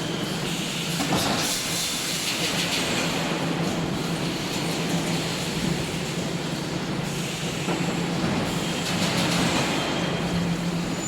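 Wire mesh welding machine running: a steady low hum under continuous mechanical clatter and hiss, with bursts of clicking about a second in and again near the end.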